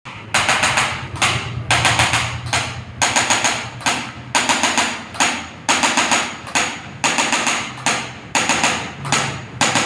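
Evenly paced percussive hits, about three every two seconds, each sharp and ringing out, over a steady low hum.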